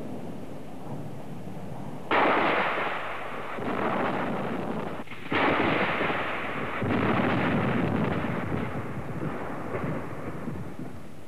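Thunder from a storm soundtrack: two sudden claps about three seconds apart, each rolling on for several seconds, over a steady low storm rumble.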